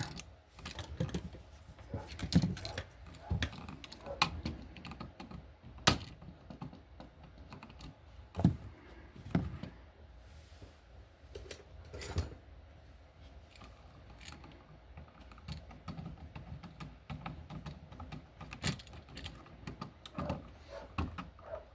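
Irregular small clicks and taps of metal as a copper ground wire is looped under a wall receptacle's ground screw and the screw is turned down with a screwdriver, with a few sharper knocks along the way.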